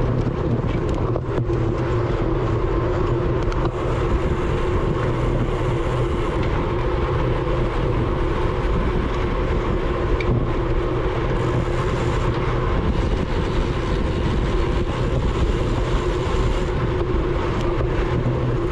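Steady rush of wind and tyre noise from a road bike at racing speed, heard through a bike-mounted GoPro, with a few faint clicks.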